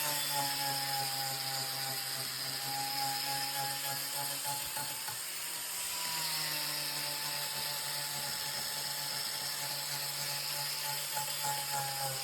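Electric power tool motor running steadily with a high whine, its pitch sagging slightly near the start and again about six seconds in.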